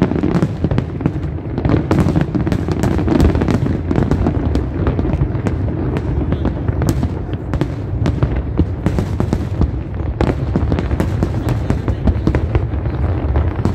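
Large aerial fireworks display: shells bursting in a rapid, continuous barrage of overlapping bangs and crackles, several a second, over a steady low rumble.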